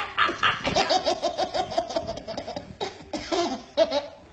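Toddler laughing in quick, repeated bursts: a fast run of ha-ha pulses about a second in, then another round of laughing near the end.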